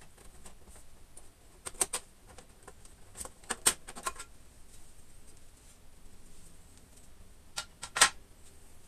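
Plastic air deflector of a Power Mac G5 being worked loose and lifted out of the aluminium case: three clusters of sharp plastic clicks and clatter, the loudest near the end.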